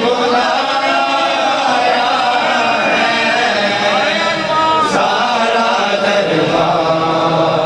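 Men chanting a noha, a Shia mourning lament, the sung voices sliding and wavering in pitch without a break.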